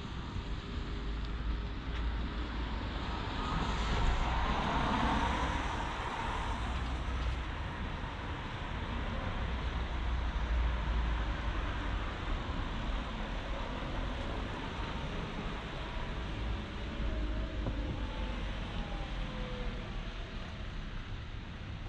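Road traffic: a car passes, loudest about four to five seconds in, over a steady background of traffic noise.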